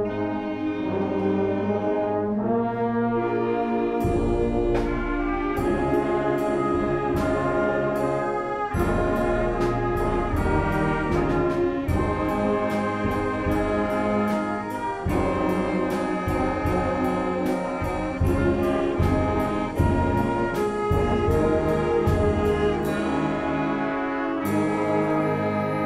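High school concert band playing, brass to the fore with trombones, over sustained chords. A steady percussion beat joins about four seconds in.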